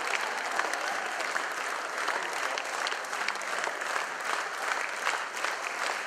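Large audience applauding, dense and steady clapping without a break.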